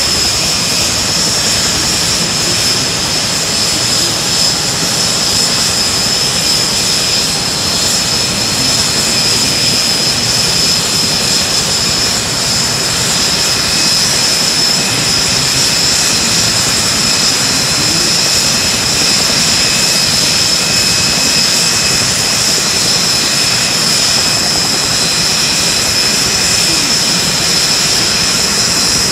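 Aircraft turbine engine running steadily: a constant high whine over an even, unbroken noise.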